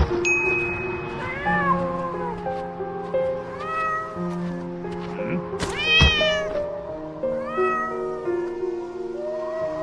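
Music whose tune is carried by cat meows, short arched calls one after another over sustained backing notes; the loudest and highest meow comes about six seconds in.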